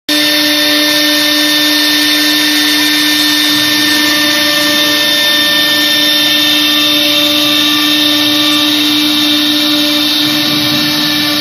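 Chencan 1325 CNC wood router's spindle running at a steady speed: a loud, steady machine whine with several fixed pitches over a hiss.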